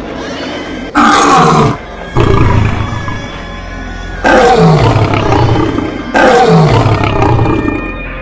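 Dubbed monster roar sound effect for a creature: four loud roars, each sliding down in pitch, over a low music bed.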